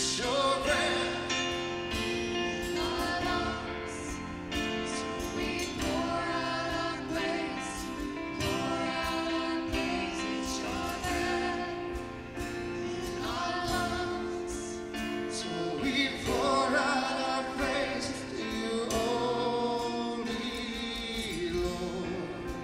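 Gospel-style worship song: a choir sings over instrumental accompaniment with regular drum hits.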